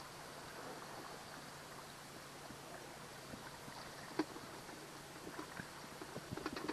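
Small boat under way at slow no-wake speed: a faint steady motor hum under a haze of water and wind noise, with a sharp knock about four seconds in and a quick run of knocks near the end.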